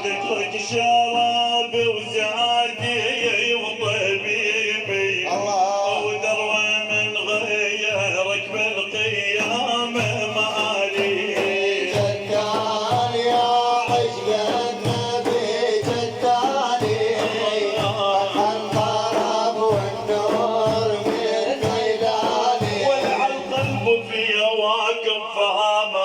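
Devotional praise music: a wavering melody over a steady drum beat, the drum stopping about two seconds before the end.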